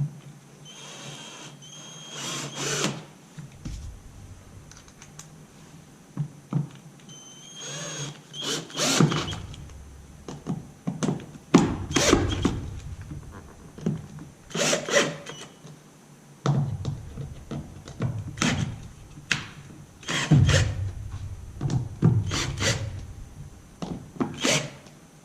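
Cordless drill with a Phillips bit driving screws through a dolly-wheel bracket into a boat transom, in short bursts of motor whine, with knocks and clicks from handling the tool, screws and bracket.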